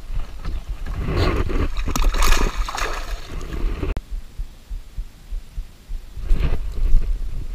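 Water splashing and sloshing as a bass is let go over the side of a kayak, lasting a couple of seconds; about four seconds in comes a single sharp click, then brief handling noise from the rod and reel.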